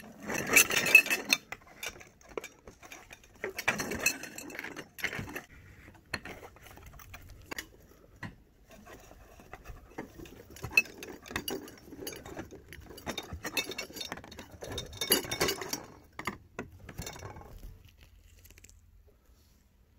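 Stainless steel frame tubes clinking and rolling against one another on a tabletop and being pushed into plastic sleeve connectors, in irregular bursts of clatter that die away near the end.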